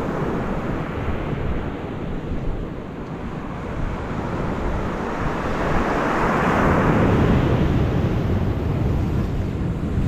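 Sea waves breaking against rocks along the beach, the wash swelling louder about halfway through as a wave breaks, with wind buffeting the microphone.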